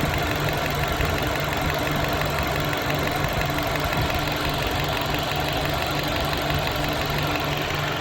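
A 2019 Mercedes-Benz A220's 2.0-litre turbocharged direct-injection four-cylinder idling unevenly and unstably. It has a misfire in cylinder 3, which persists after new spark plugs and ignition coils and sets no fault code.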